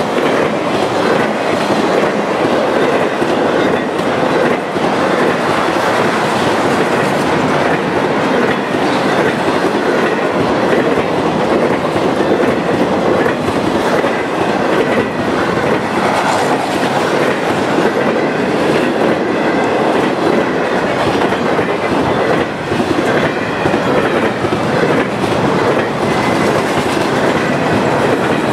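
Norfolk Southern freight train of empty flatcars rolling past at speed: a steady rumble with the clickety-clack of steel wheels over the rails.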